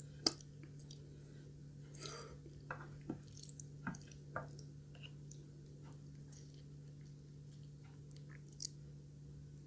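A person chewing a mouthful of Japanese curry rice, with soft wet mouth sounds and scattered faint clicks, over a faint steady hum.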